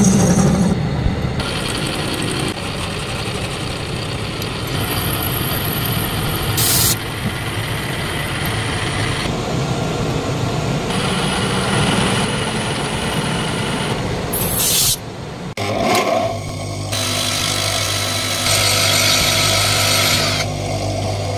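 A run of metalworking machine noise that changes abruptly every few seconds: a metal lathe cutting a steel part at the start, and a motor-driven grinding wheel running with a steady hum from about two thirds of the way in.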